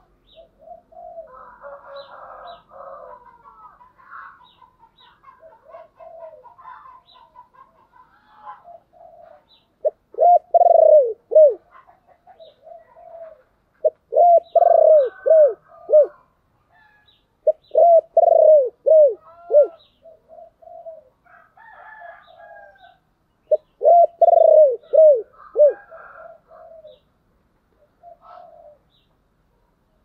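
Spotted dove giving its calling coo: four loud phrases, each a quick run of several arched coos, coming about every four seconds from roughly ten seconds in. Fainter calls of other birds sound between the phrases.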